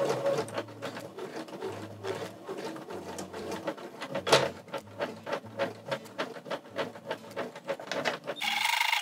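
Sewing machine stitching slowly through a thick, bulky seam of quilt fabric, running in short bursts with the motor stopping and starting and the needle clicking stitch by stitch. Music comes in near the end.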